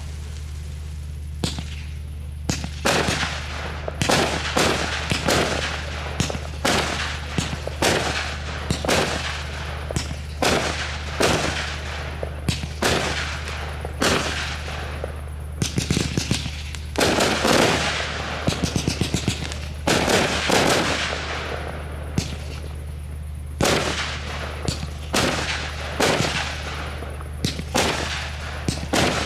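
Fireworks display: a steady run of sharp bangs, about one a second, with a quick rattling string of reports a little over halfway through. A steady low hum runs underneath.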